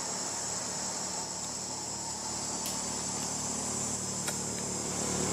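A steady, high-pitched chorus of insects trilling, with a couple of faint clicks about three and four seconds in.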